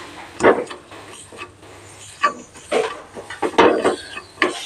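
Steel spatula stirring and scraping thick date paste around a non-stick frying pan: a run of irregular scrapes and light knocks against the pan, about five of them louder than the rest.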